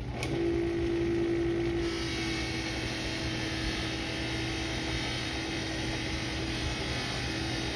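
Electric-motor buffing wheel running with a trombone's brass bell pressed against the buff: a steady motor hum under a rubbing hiss. A clear tone comes in just after the start, strongest for about two seconds, then carries on more faintly.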